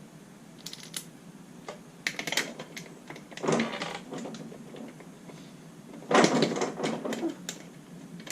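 Metal clicking and clattering of lug nuts and hand tools as the lug nuts go onto an ATV wheel, in a few bursts, the loudest and densest about six seconds in.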